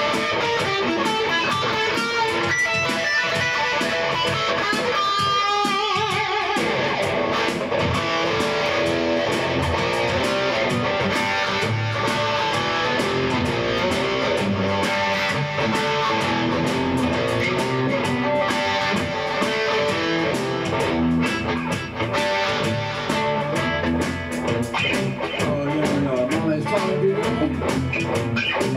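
Rock music led by electric guitar. A held note wavers heavily about five seconds in.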